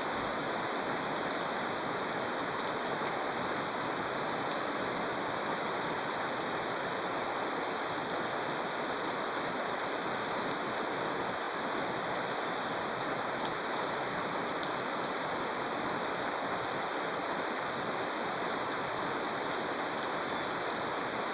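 Steady, heavy rain falling, an even hiss of drops on surfaces without a break.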